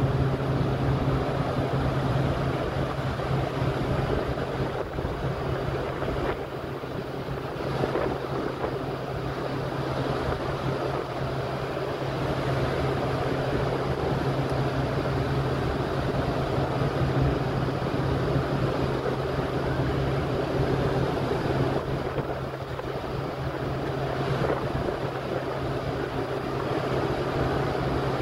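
Cruise ship Carnival Valor under way at sea: its wake churns and rushes over a steady low hum from the ship, with wind on the microphone.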